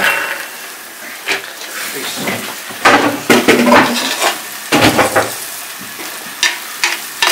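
Wooden spoon stirring thick curry masala in a clay pot, scraping irregularly against the pot, with the paste sizzling as it fries on the gas flame. The strokes are busiest about three to five seconds in.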